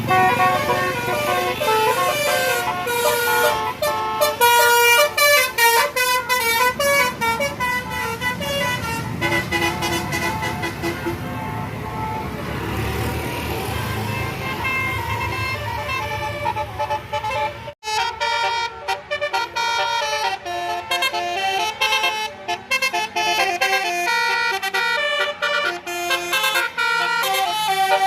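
Tour bus 'telolet' multi-tone musical horns playing quick melodic runs of several notes at once, the pitches jumping in rhythmic patterns. The horn playing breaks off suddenly about 18 seconds in and starts again with a new tune.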